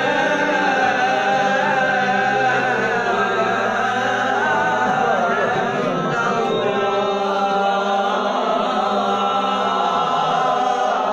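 Unaccompanied male chanting of the ezan, the Islamic call to prayer, in the Hicaz maqam: long held notes bending and ornamented up and down without a break.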